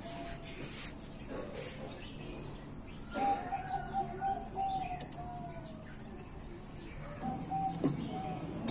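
A dove cooing in two runs of short repeated notes, the first ending in a longer falling note. There is one sharp knock near the end.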